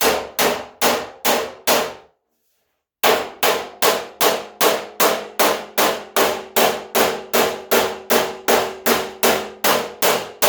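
A body hammer striking the steel front fender of a 1978 Ford F100, each blow ringing the sheet metal. It gives five blows, pauses about a second, then keeps a steady run of about two and a half blows a second, knocking a low spot in the fender back up.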